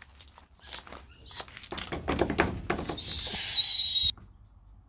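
Snowy owl chick giving its hissing, screeching begging call for food: a few short hissy calls, then one drawn-out screech that cuts off suddenly, with knocking and rustling in between.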